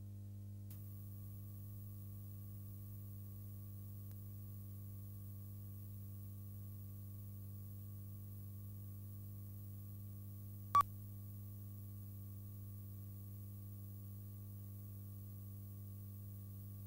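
Steady low electrical hum with a faint, steady high test tone on a broadcast videotape's countdown-clock leader, broken by one short, loud beep-like pip about eleven seconds in.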